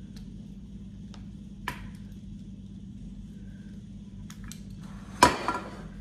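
Light clicks of a metal pizza cutter and a glass baking dish being handled on a countertop, with one loud sharp knock and a short ring about five seconds in as the glass dish is moved.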